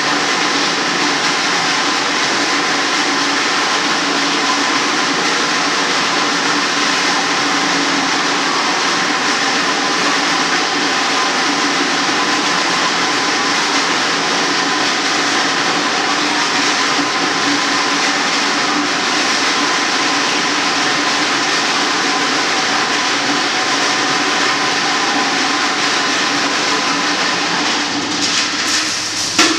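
Steady, loud rushing noise with a faint hum running through it. It holds almost unchanged and cuts off near the end.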